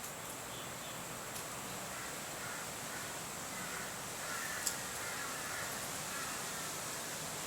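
Faint animal calls under a steady hiss, with a couple of sharp clicks.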